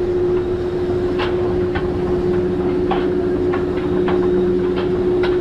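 Vekoma suspended coaster train climbing its lift: a steady mechanical hum from the lift drive, with sharp clicks from the track every half second to a second.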